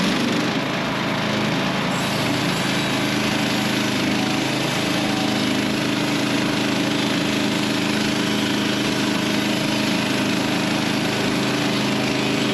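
Woodland Mills HM130 Max portable bandsaw mill running steadily under load, its gasoline engine and band blade cutting through a frozen, snow-covered log.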